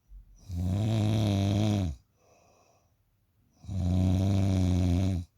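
A sleeping person snoring: two loud, low-pitched snores about a second and a half long each, roughly three seconds apart, with a soft breath between them.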